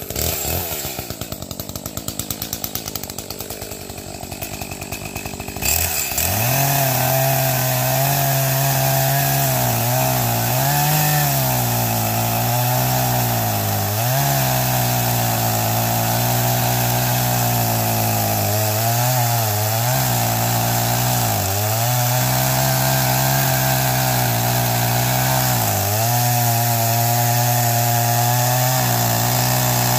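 A two-stroke chainsaw cutting firewood. For the first six seconds it runs at low speed with a fast, even ticking beat. It is then held at full throttle, and its loud, steady note sags in pitch again and again and recovers as the chain bites into the wood.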